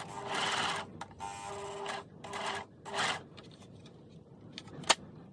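Overlocker (serger) running in about four short bursts with no fabric in, drawing knotted new threads through the loopers and toward the needles. It then stops, with a single sharp click near the end.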